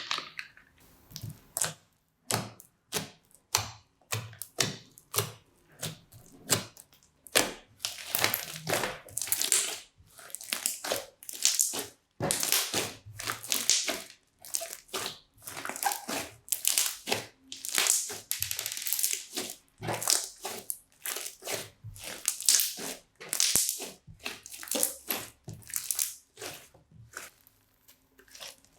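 Crunchy slime packed with small beads being squeezed and pressed by hand, giving a long run of crackling crunches, one every half second to a second.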